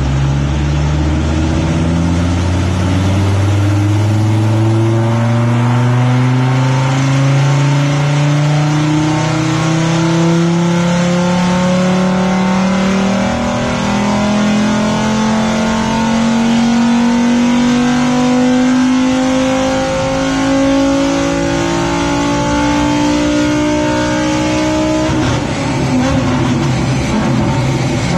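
Volkswagen Up's swapped-in 2.3-litre VR5 five-cylinder engine doing a full-throttle power run on a rolling-road dyno. Its pitch climbs steadily and without a break for about 25 seconds as the revs rise, then drops suddenly as the throttle is lifted, leaving a rougher, lower running sound.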